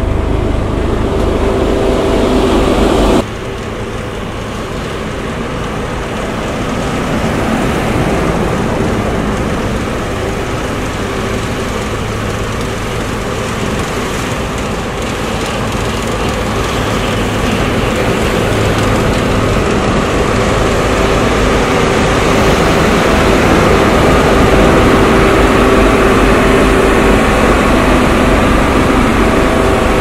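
XGMA steel-drum road roller's diesel engine running steadily, with a constant hum. After a sudden drop about three seconds in, it grows gradually louder as the roller moves close by.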